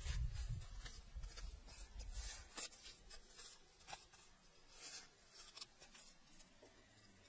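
Faint scratching and scraping of loose soil being dug out of a burrow, with crumbs of earth falling. A low rumble runs under the first two and a half seconds.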